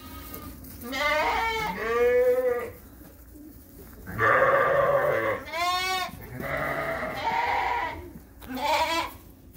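Lambs bleating: about six quavering calls one after another, some long and some short, with a short pause after the second.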